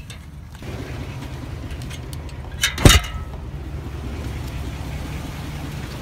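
BMX wheels and bike parts being loaded into the back of a car: a single sharp clank about three seconds in, with a few light ticks just before it, over a steady low hum.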